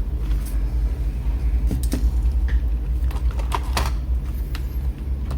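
Scattered short clicks and taps from handling a laptop, over a steady low hum.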